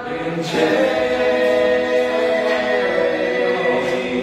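Men's voices singing a cappella in close harmony, holding a long chord from about half a second in, with the notes moving near the end.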